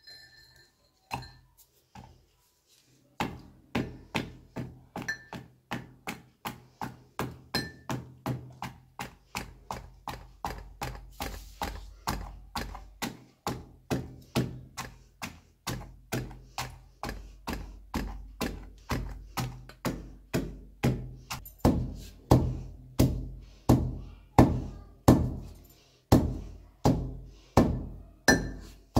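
Wooden pestle pounding roasted poppy seeds (khaskhas) in a wooden mortar. A few loose knocks, then steady thuds about twice a second that grow louder toward the end as the seeds are crushed to a powder.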